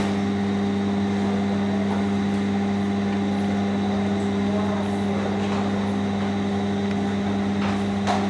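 Steady machine hum: a constant low drone with a clear pitch that does not change in level or pitch.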